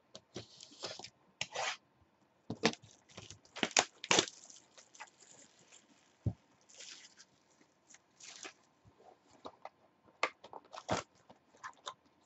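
A sealed trading card box being opened and handled: irregular bursts of tearing, rustling and scraping from the wrapping and cardboard, with a few sharp clicks, loudest about four seconds in and again near the end.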